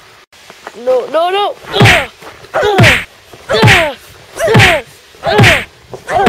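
A high voice crying out over and over, about once a second, each cry rising and then falling in pitch.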